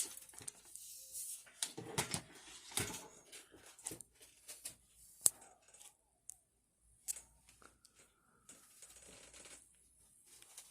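Scattered light clicks and knocks with rustling from a plastic box fan being handled and turned over.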